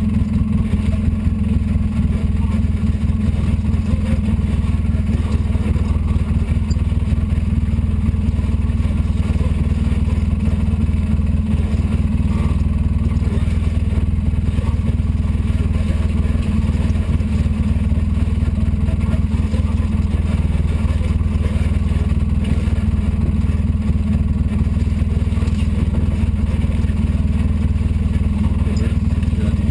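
Polaris RZR 800 side-by-side's twin-cylinder engine running steadily as the machine drives along a rough dirt trail, heard from inside the cab.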